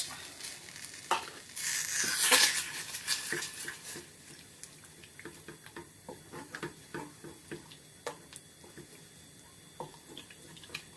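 Cream and cream cheese being stirred in a saucepan over low heat to melt: a hiss lasts a couple of seconds near the start, then light scattered clicks of the utensil against the pan.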